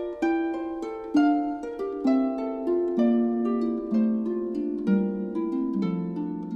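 Gayageum played as background music: single plucked notes, about two or three a second, in a slow line that steps downward in pitch, with some held notes wavering.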